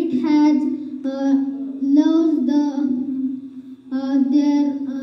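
A boy's voice speaking into a microphone in short phrases, with a brief pause a little before the end.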